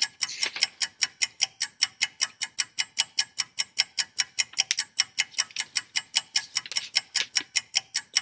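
Rapid, even clock-like ticking, about five sharp ticks a second.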